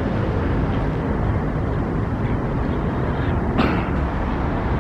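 Steady outdoor background rumble, heaviest in the low end, with one short sharp click about three and a half seconds in.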